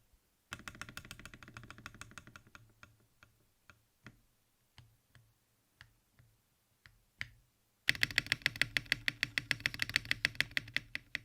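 Mechanical keyboard with Akko Mirror linear switches and PBT keycaps being typed on, with a clacky sound. A quick run of keystrokes comes first, then single key presses spaced out, then fast continuous typing near the end.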